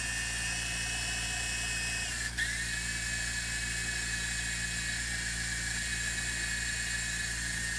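Electric motors and rotors of a GT-3386 mini infrared toy helicopter whining steadily in flight, with a high pitch. The whine breaks off for a moment about two seconds in, then carries on slightly lower.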